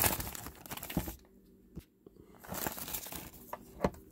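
Clear plastic shrink-wrap crinkling and tearing as it is peeled off a metal trading-card tin, in two spells with a pause between, and a sharp click near the end.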